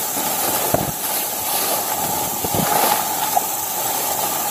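Leaves and stems rustling, with a few twigs cracking, as a person pushes on foot through dense undergrowth, over a steady high hiss.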